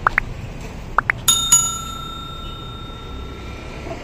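A small bell struck twice in quick succession, ding-ding, its tone ringing on for about two seconds. Just before it come four short rising chirps in two quick pairs.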